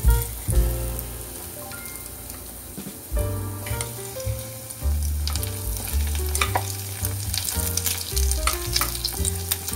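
Battered fish fillet pieces deep-frying in hot oil in a pot, the oil sizzling and crackling while chopsticks stir and turn the pieces. The sizzling grows louder about halfway through as more pieces go into the oil.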